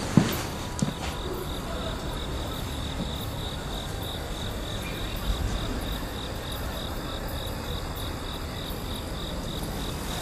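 Crickets chirping in a steady, even trill of about four pulses a second over a low background hiss. A sharp knock comes just after the start and a smaller one just under a second in.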